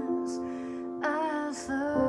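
A woman singing a slow hymn while accompanying herself on an old, out-of-tune Bechstein piano, with sustained chords under her voice.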